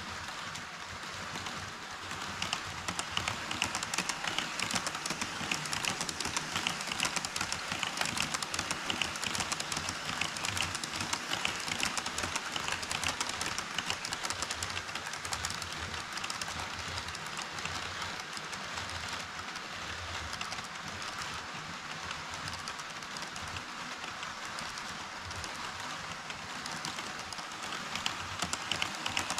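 HO scale model train running on KATO Unitrack, a steady rolling rattle with a dense patter of fine wheel clicks, louder from about two seconds in.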